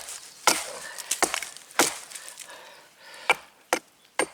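Small hatchet striking wood, about six sharp chops at uneven intervals.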